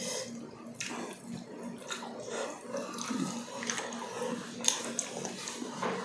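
Close-miked wet eating sounds of balbacua eaten by hand: irregular chewing, lip smacks and squelches of sticky, gelatinous beef, over a faint steady hum.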